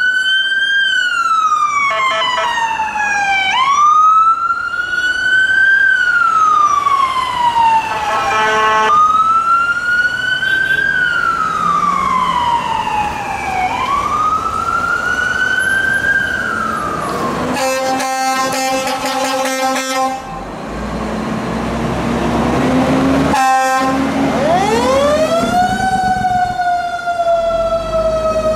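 Fire truck siren wailing, rising quickly and falling slowly about every five seconds, with blasts of an air horn: two short ones early, a long one about two-thirds of the way in and another short one soon after. Near the end the siren winds up again over a low engine rumble.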